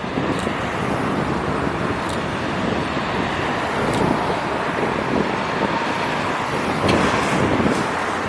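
Street traffic: motor vehicles driving past, a steady rush of engines and tyres.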